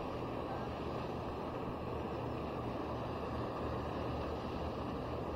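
Steady low drone of a motorboat engine running out on the lake, under an even rushing noise.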